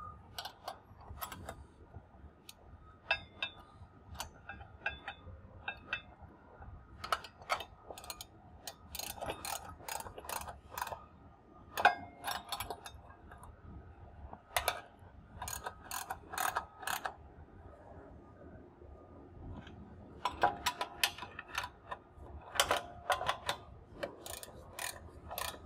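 Hand ratchet wrench clicking in bursts as it tightens the mounting bolts of a tensioner bracket on a steel conveyor frame, with short pauses between groups of strokes.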